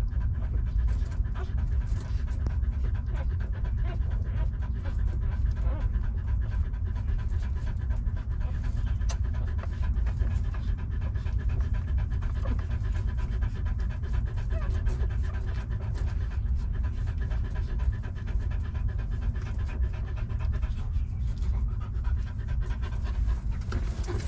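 A nursing mother dog panting steadily with her mouth open.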